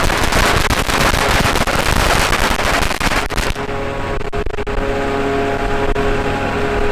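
Heavy machinery engine running with a steady hum, under a loud rushing noise that drops away about three and a half seconds in, with scattered clicks and knocks.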